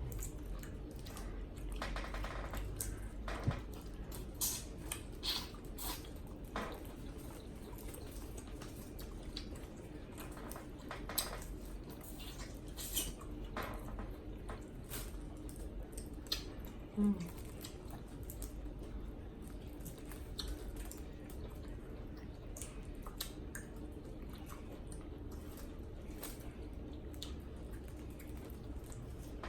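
People eating a shrimp boil with corn on the cob: scattered wet clicks and smacks of chewing and handling the food, over a steady low hum.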